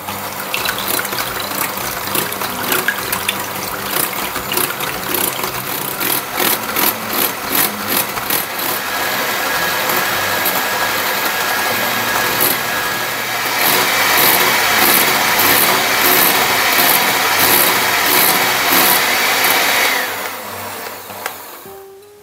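Electric hand mixer running with its twin beaters whipping egg whites in a glass bowl, with rapid clicking over the first half. About two-thirds of the way in it gets louder, with a steady whine, as the whites thicken to stiff peaks. It stops a second or two before the end.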